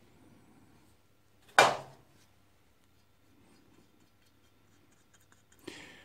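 Faint rustling as a motorcycle rear brake caliper and its slider pins are handled, with one sharp knock about one and a half seconds in that fades within half a second.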